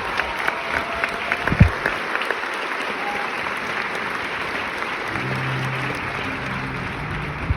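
Theatre audience applauding, a dense steady clatter of clapping. About five seconds in, the pit band comes in with low held notes under the applause.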